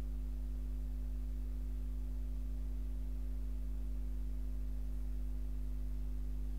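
A steady, unchanging low hum, with no clear strokes or scrapes standing out above it.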